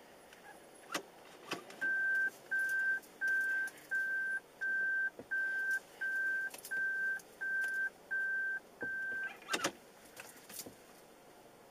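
Car's reverse-gear warning beeper sounding eleven even electronic beeps, about three every two seconds, while the car backs slowly; the beeping stops about nine seconds in and is followed by a few sharp clicks.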